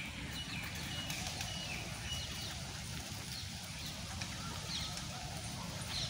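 A flock of small birds chirping, with many short, scattered high chirps over a low steady rumble.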